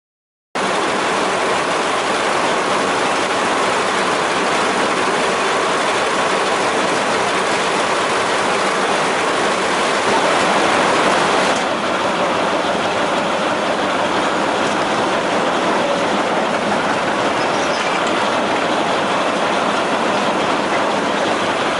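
1926 Twin City gas engine of a Northwest 105 dragline running steadily with a rod knock. The sound cuts in suddenly about half a second in and turns duller a little past halfway.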